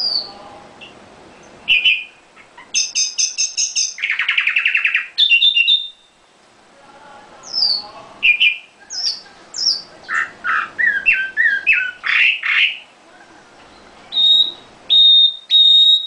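Red-billed leiothrix (Chinese nightingale) singing a varied song of rapid trills, a buzzy rattle and quick slurred whistles, ending in a string of clear, steady whistled notes.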